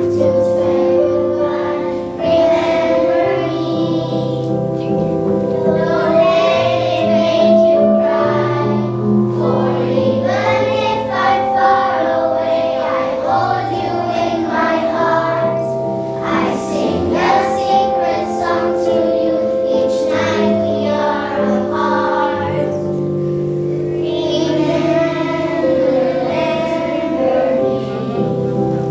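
A group of children singing a song together over instrumental accompaniment, with held notes and a moving bass line.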